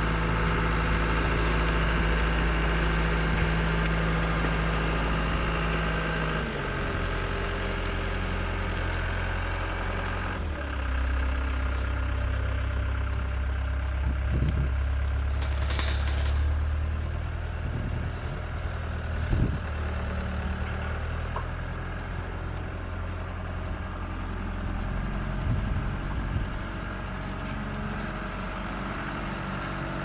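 Caterpillar skid steer's diesel engine running steadily while it carries a loaded pallet on its forks; the engine speed drops about six seconds in and shifts again around ten seconds. A couple of short knocks sound midway.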